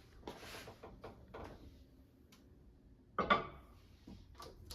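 Faint knocks and scrapes of a bowl of noodles in water being set into a microwave oven, then a short, sharper clack about three seconds in and a few small clicks near the end.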